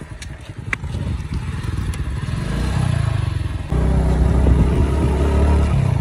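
Motorcycle engine running steadily while riding, with wind noise on the microphone; the engine grows louder about two-thirds of the way through.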